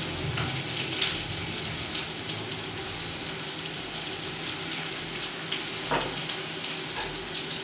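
Chopped onion sizzling in hot ghee in a frying pan, a steady hiss with a few light clicks.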